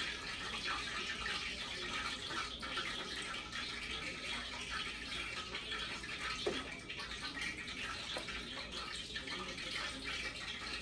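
Steady hiss-like background noise, with a few soft ticks and rattles from spice shakers being shaken over raw pork chops in a foil pan.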